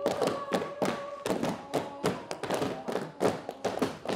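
A group of performers beating out uneven thuds and taps on the stage floor, about three or four a second. A steady held note sounds over the first second or so.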